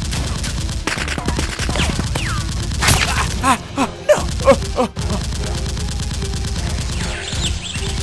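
Rapid automatic gunfire over background music, with a few short cries in the middle.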